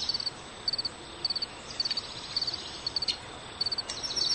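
Cricket chirping: short pulsed chirps repeating a little under twice a second, over a faint steady hiss of outdoor ambience.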